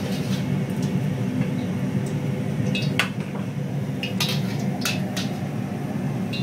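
Kitchen utensils and dishes clinking against a cooking pan, several sharp clinks mostly in the second half, over a steady low hum.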